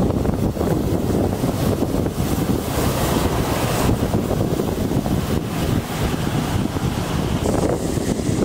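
Wind buffeting the microphone, with the hiss of rain.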